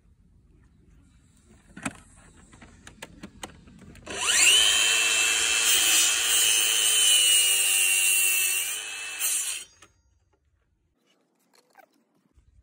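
A few clicks, then about four seconds in the Mafell KSS40 compact circular saw spins up with a rising whine and cuts along its guide rail through a wooden board for about five seconds, the pitch sagging a little under the load of the cut. It stops abruptly.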